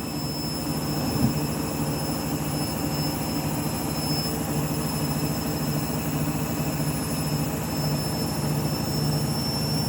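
Washing machine spinning at speed in its final spin, set to 1000 rpm: a steady drone with a thin, high motor whine over it.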